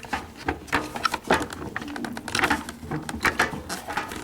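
Irregular clicks, knocks and rattles of plastic parts as the wiring-harness plug is pushed back onto a new washing machine timer.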